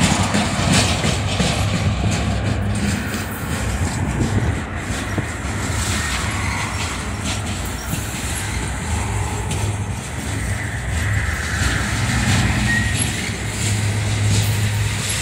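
Loaded freight flatcars rolling past on steel rails: a steady rumble of wheels on track with scattered clicks and knocks.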